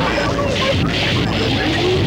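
Loud, dense collage of distorted music and harsh noise, with a tone sliding upward in the second half.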